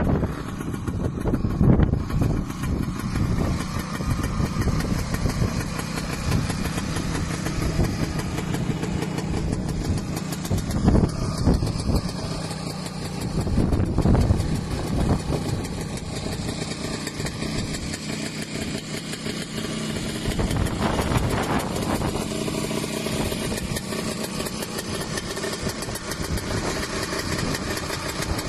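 1973 Snowbug Superbug snowmobile's small engine idling steadily, briefly louder a few times.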